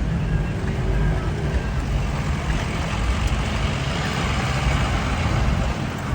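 Off-road vehicle's engine running steadily with a low rumble and a rushing noise over it.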